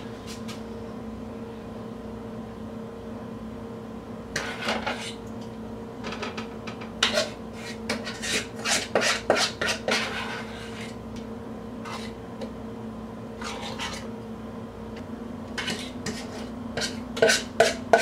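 A utensil scraping and clinking against a mixing bowl and a metal muffin tin in short bursts as batter is scooped into the cups, over a steady low hum.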